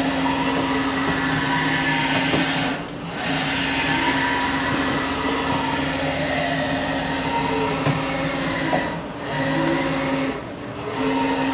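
1995 Haas VF0 vertical machining center's Y-axis servo drive jogging the table by handwheel: a steady electric motor whine with gliding pitch as the axis speeds up and slows. It stops and picks up again three times: about 3 s in, about 9 s in, and near the end.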